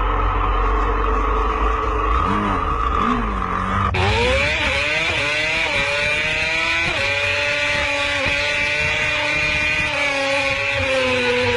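Engine and wind noise of a vehicle at highway speed. After an abrupt cut about four seconds in, an engine accelerates hard through several gear changes, its pitch climbing and dropping back at each shift.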